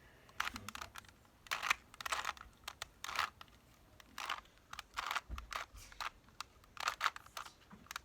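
Plastic clicks and clacks of a 2x2 Rubik's cube being twisted by hand, in irregular turns a few times a second.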